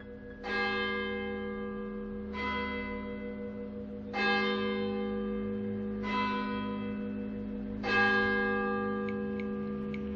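A large bell tolling slowly: five strikes about two seconds apart, each ringing on and fading, over a steady low hum.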